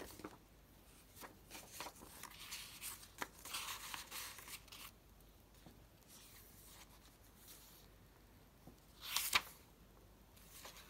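Soft paper rustling and sliding as a small card is handled and tucked into a paper journal page, with a few light clicks, then a louder swish of a page turning about nine seconds in.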